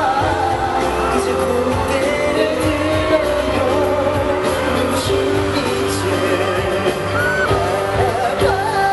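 A live K-pop song played over a concert sound system, with many voices singing the melody over a steady bass line.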